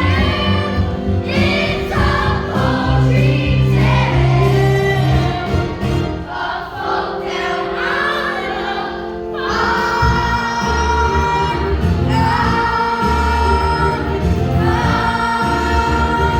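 A choir of voices singing together over instrumental backing, with long held notes in the second half.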